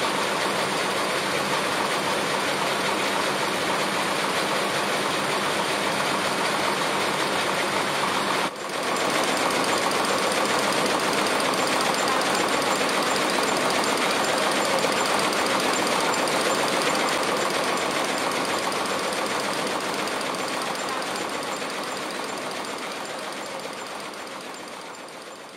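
Multi-head industrial embroidery machine running, a fast, dense clatter of many needles stitching. It breaks off briefly about eight and a half seconds in, then carries on and fades out near the end.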